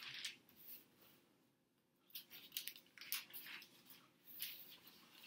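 Thin Bible pages being leafed through, a faint rustling of paper: a quick flurry at the start, a short lull, then a run of page turns from about two seconds in.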